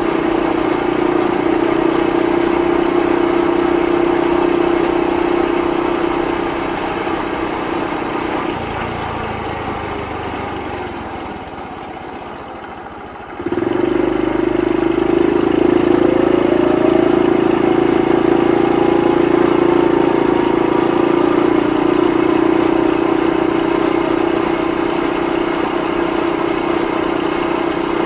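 Honda Super Cub 50's single-cylinder four-stroke engine running under way at a steady note. About nine seconds in, the note falls and grows quieter for a few seconds. Around halfway it comes back suddenly and climbs in pitch as the bike picks up speed again.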